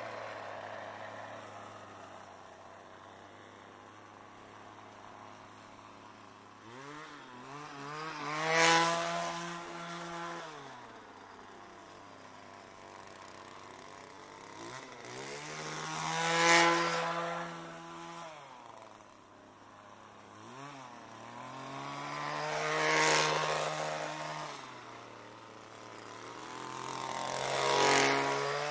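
Gas weedwacker engine revving as it passes by four times. Each pass swells to a loud, higher-pitched rev and then falls back to a lower idle.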